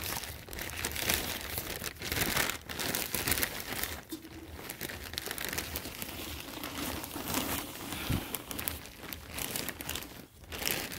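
Plastic bag of potting soil crinkling and rustling as it is handled and tipped, with soil spilling from it into a large glazed pot.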